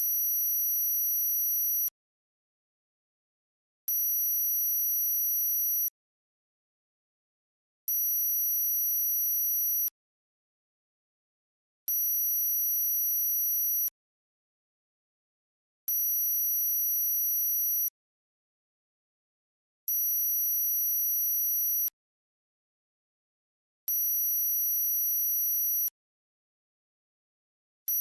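Synthesized very high-pitched tone for tinnitus masking, pulsing two seconds on and two seconds off in a steady repeating pattern, seven times, with silence between.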